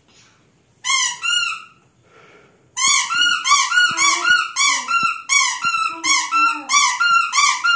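Squeaky rubber toy squeezed over and over: two squeaks about a second in, then a steady run of squeaks, roughly three a second, each rising and falling in pitch.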